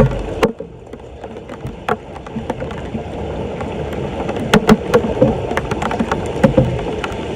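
Floodwater washing into a street storm drain, with sharp splashes and knocks scattered through it. These come more often from about four and a half seconds in.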